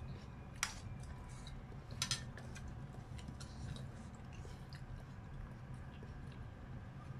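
Metal spoon and wooden chopsticks clinking and scraping against a ceramic bowl of noodle soup. There is a sharp click about half a second in and a quick double click about two seconds in, with lighter taps between, over a steady low hum.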